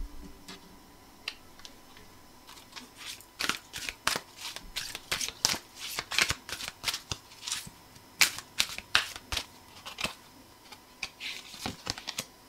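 A deck of cards shuffled by hand: a quick, irregular run of card flicks and slaps for several seconds from about three seconds in, tailing off into a few scattered ones near the end.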